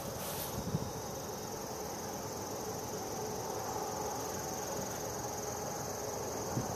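Steady chorus of insects trilling, a continuous high-pitched sound, with a soft low thump about a second in.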